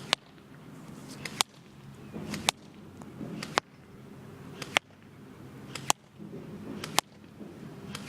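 Airsoft replica of a 1928 Thompson submachine gun firing single shots on semi-automatic: a steady string of sharp snaps, about one a second, roughly eight in all.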